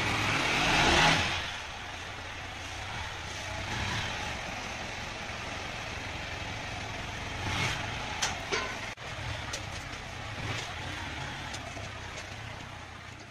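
Yamaha R15 sport bike's single-cylinder engine running: a short louder rise about a second in, then a low, steady running as the bike sits and rolls away slowly, with a few sharp clicks around the middle.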